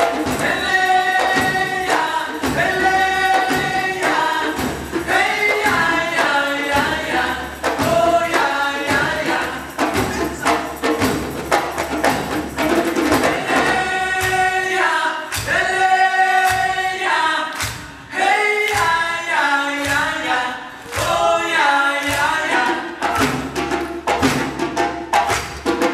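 Live band music: voices singing a melody over djembe hand drums, a drum kit and other percussion, with frequent sharp drum strokes.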